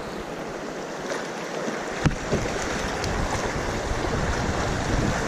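Rushing creek water around a kayak, a steady hiss with wind on the microphone, and a single sharp knock about two seconds in.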